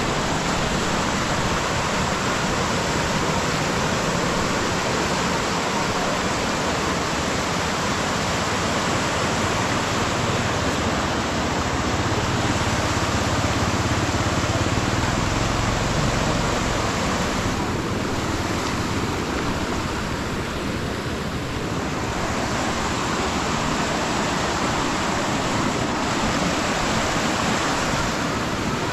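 Floodwater rushing and pouring steadily.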